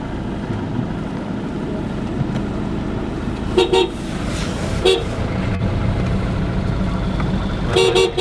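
Vehicle horn tooting in short blasts: a quick double toot about three and a half seconds in, a single toot about a second later, and another double toot near the end, over the steady rumble of a car driving through a street.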